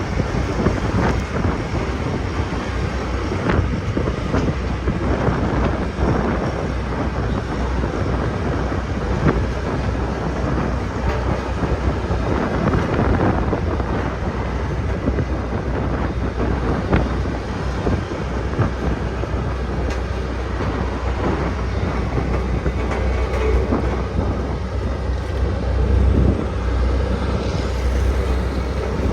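Heavy road roller running: a steady low drone with a continuous rattling clatter over it.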